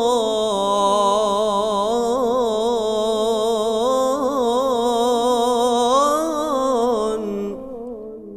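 A male voice in melodic Quranic recitation (tilawah), holding one long melismatic note with rapid wavering ornaments and rising in pitch about six seconds in. The voice breaks off about seven and a half seconds in and dies away in the mosque hall's reverberation.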